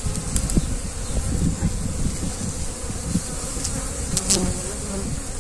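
Honeybees buzzing over an open hive as a wooden frame is pried loose with a metal hive tool and lifted out, with a sharp click near the start and another about four seconds in. A low rumble runs underneath.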